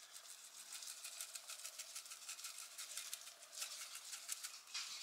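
Seasoning shaken from a spice shaker into a pot of chili: a faint, quick rattling of granules in the jar.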